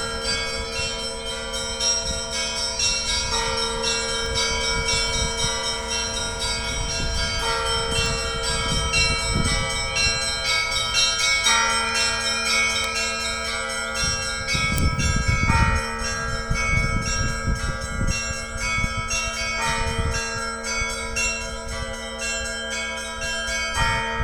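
Russian Orthodox church bells ringing a zvon: small bells chime in quick, dense strokes over heavier bells that strike again about every four seconds, and the tones ring on and overlap.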